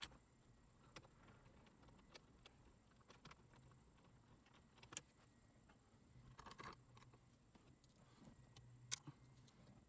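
Near silence with a few faint, scattered clicks and small taps from hand work on the dash trim screws.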